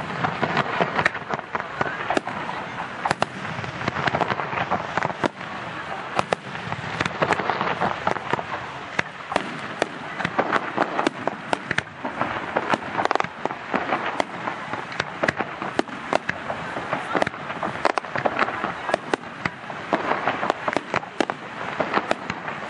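Aerial firework shells bursting in quick, irregular succession, many sharp bangs throughout.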